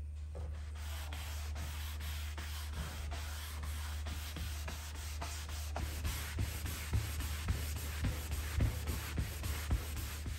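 Sanding: a continuous scratchy rasp with a regular stroke-like pattern. In the second half there are several dull knocks.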